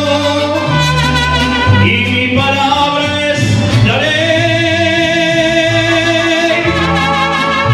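Live mariachi band playing: violins and trumpets carry the melody over guitarrón bass notes and strummed guitar, with a long held chord in the middle.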